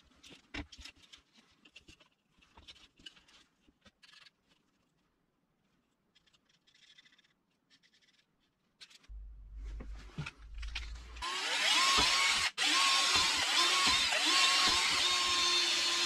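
Light handling clicks and the scratch of a marker on plastic, then from about two-thirds of the way through a Bosch Professional cordless drill running steadily with a motor whine as it bores into the wall of a PVC pipe, cut off for an instant once.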